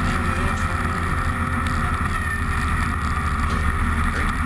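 Snowmobile engine running steadily as the sled drives over packed snow.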